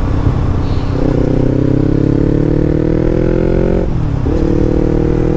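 2016 Yamaha MT-03's 321 cc parallel-twin engine breathing through an Arrow Thunder full-system exhaust, pulling under acceleration. Its note climbs steadily for about three seconds, drops sharply at a gear change about four seconds in, then pulls again.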